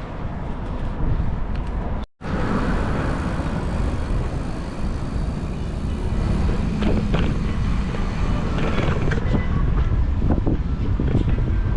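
Steady rumbling noise of wind on the microphone and road traffic while riding a bicycle, broken by a brief dropout about two seconds in.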